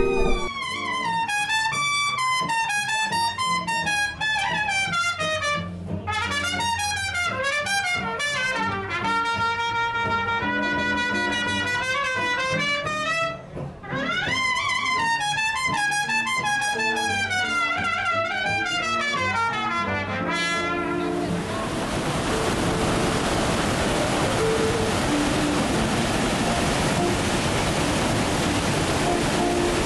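Live jazz trio of trumpet, archtop guitar and upright bass, the trumpet carrying the melody. About two-thirds of the way through it cuts abruptly to a steady rush of churning wake water behind a riverboat.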